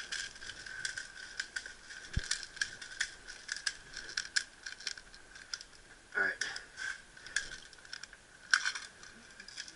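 Airsoft gear being handled: irregular light clicks and rattles, over a faint steady high tone.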